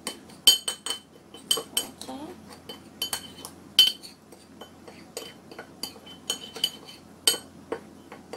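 A metal spoon clinks and scrapes against a small ceramic bowl while stirring a dry powdered seasoning mix and breaking up its clumps. It makes irregular sharp, ringing clinks, a few each second.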